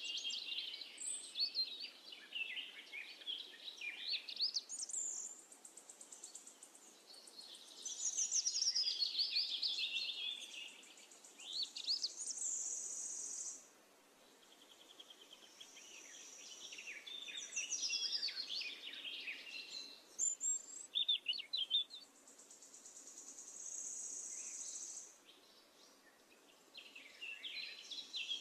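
Birds chirping and warbling in quick, high gliding phrases that come and go every few seconds, with a thin, steady high trill now and then between them.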